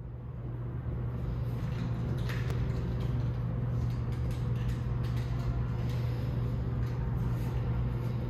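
Steady low hum of room tone over a light hiss, fading up over the first second, with a few faint clicks.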